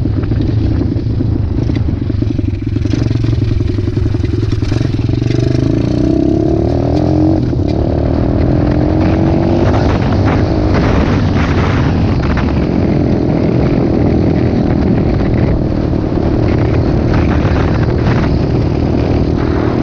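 Dirt bike engine running under way, its revs climbing about five to eight seconds in, then holding steady, with rattling and gravel noise from riding on a gravel road.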